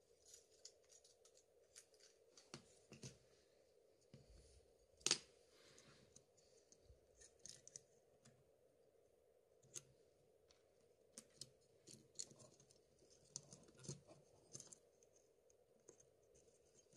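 Faint, scattered small clicks and scrapes of fingers handling a Samsung Galaxy S3's motherboard and pressing its connectors into place, with one sharper click about five seconds in.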